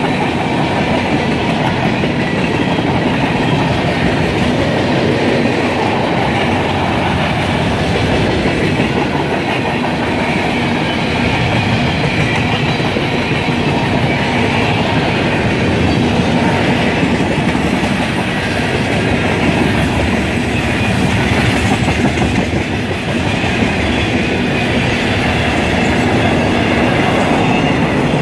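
Manifest freight train cars rolling past close by: covered hoppers, tank cars and boxcars with their steel wheels running over the rails in a steady, unbroken noise.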